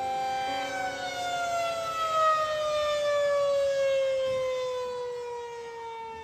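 Outdoor warning siren holding its pitch for a moment, then winding down, its pitch falling slowly and steadily.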